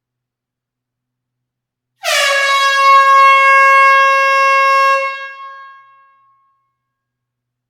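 Air horn sounded in a closed room: one long, steady blast of about three seconds starting about two seconds in, then dying away.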